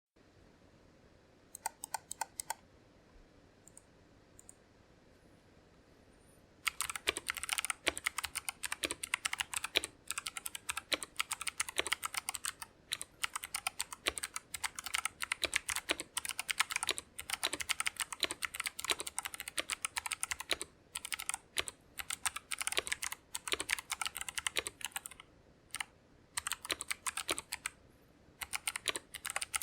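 Typing on a mechanical keyboard with Kailh Box Jade clicky switches, each keystroke a sharp click. A few keystrokes near the start, then quiet for a few seconds, then fast continuous typing with brief pauses.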